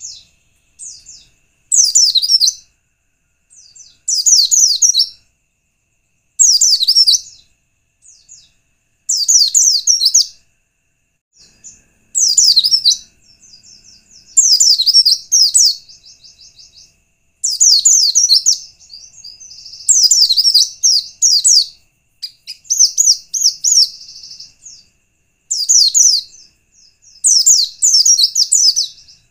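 White-eye (pleci) song used as a lure recording: about eleven rapid, high twittering phrases, each a second or two long, repeated every two to three seconds.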